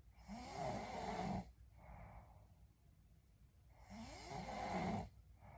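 A sleeping woman snoring: two loud rasping snores about three and a half seconds apart, each followed by a softer breath.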